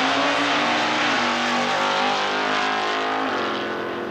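Two drag-racing cars accelerating hard side by side down the strip, their engines running at full throttle. The engine notes drop in pitch twice, about a second in and again after three seconds, as they shift gears, and the sound fades a little near the end as the cars pull away.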